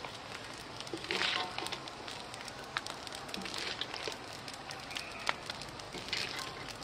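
Metal spatula scraping and scooping stir-fried crab and glass noodles out of a metal wok, with three longer scrapes about 1, 3.5 and 6 seconds in and light clicks of shell against metal, over a steady crackling background.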